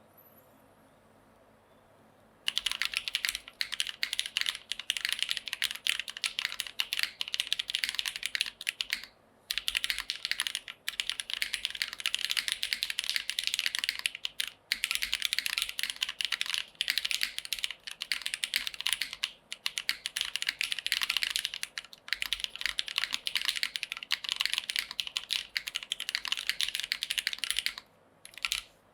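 Fast typing on a custom TKL mechanical keyboard with lubed, filmed, broken-in Cherry MX Black linear switches in a top-mount aluminium plate and GMK keycaps: a dense run of key strokes. It starts about two and a half seconds in, with short pauses a few times.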